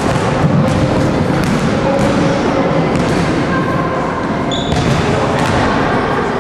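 Several basketballs bouncing on a sports-hall floor and striking the backboard and rim, a steady run of thuds from children's shooting practice.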